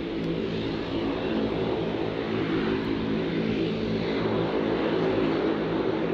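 Propeller aircraft's piston engine running steadily in flight, a droning hum of low tones over a rush of propeller noise.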